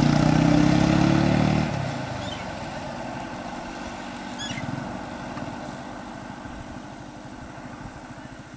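Minivan engine running close by, loud for the first couple of seconds, then dropping away sharply as the van pulls ahead; a quieter low engine rumble carries on, with a couple of faint high chirps.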